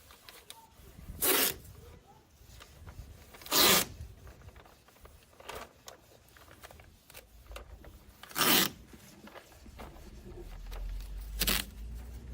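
Four short rasping noises a few seconds apart, with a low hum coming in near the end.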